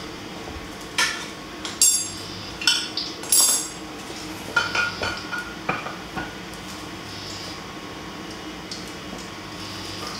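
Dishes and cutlery clinking and clattering on a kitchen counter: several sharp knocks in the first six seconds, then only a faint steady hum.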